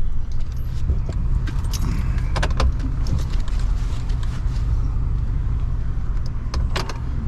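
Truck driving slowly over rough ground: a steady low engine and tyre rumble with frequent short clicks and rattles of loose items jangling.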